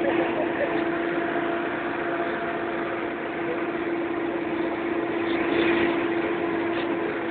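Engine of the vehicle towing the sled, running at a steady speed: a constant hum over a steady rushing noise of travel across snow.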